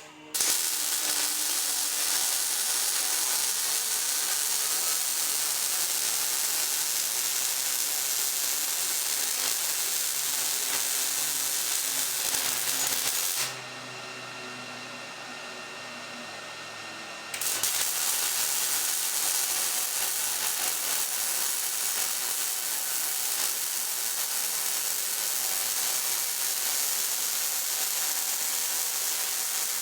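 Millermatic 211 MIG welder running beads on mild steel with argon/CO2 shielding gas now flowing: a steady crackling hiss from the arc. It stops for about four seconds near the middle, leaving a quieter hum, then a second bead starts.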